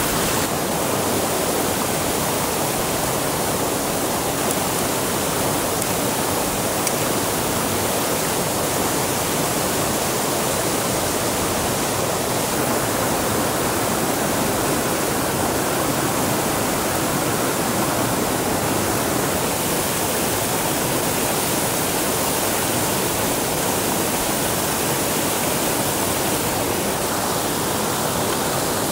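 Steady rushing of water, an even, unbroken hiss.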